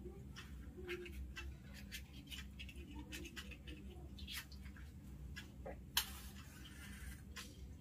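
Faint clicks and rustles of hands handling a cigarette and its light. About six seconds in comes a sharp strike followed by a hiss lasting about a second as a flame catches to light the cigarette.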